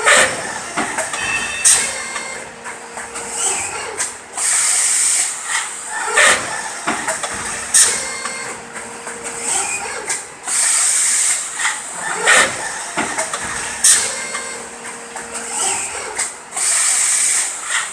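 High-speed side-entry servo robot and moulding machine cycling: repeated bursts of compressed-air hiss, sharp clicks and knocks, and a faint steady motor tone in stretches, the pattern recurring about every six seconds.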